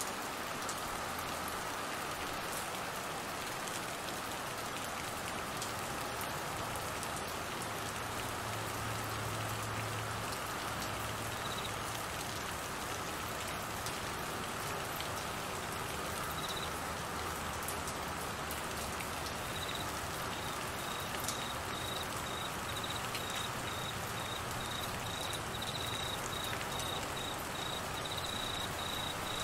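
Steady rain falling on trees and grass. A cricket chirps in a high, fast pulsing trill, briefly a couple of times and then steadily through the last third.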